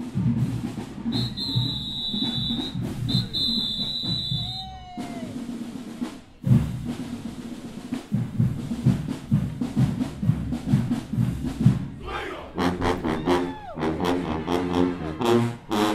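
Marching band drumline of snare and bass drums playing a driving cadence, with two long high steady tones early on. Near the end the band's horns come in over the drums.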